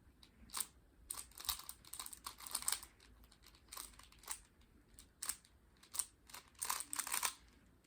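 Rubik's Connected 3x3 smart cube being turned fast during a speedsolve: its plastic layers click and scrape in irregular quick runs of turns.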